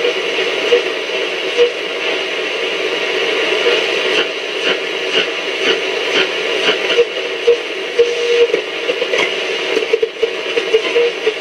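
Roberts R727 transistor radio's loudspeaker giving out shortwave static as the tuning knob is turned between stations: a steady hiss with scattered crackles and brief whistles, the longest about eight seconds in.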